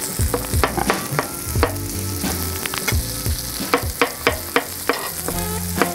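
Pancetta and mushrooms sizzling on a griddle pan (stekhäll), being stirred and pushed about with quick repeated strokes, about three a second.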